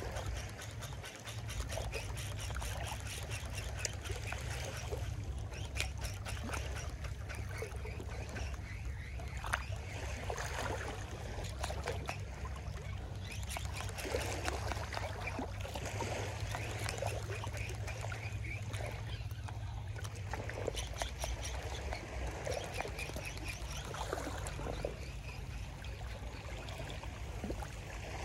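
Small waves washing and trickling on a shallow sandy beach, with a steady low rumble beneath and many small crackling ticks.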